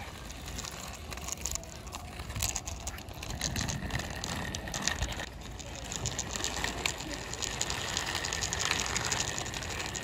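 Small plastic toy autorickshaw pushed by hand over rough concrete, its plastic wheels rolling and rattling in a dense run of small clicks.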